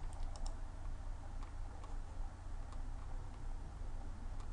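Scattered light clicks of a computer mouse, its scroll wheel turning as a document is scrolled down page by page, over a steady low electrical hum.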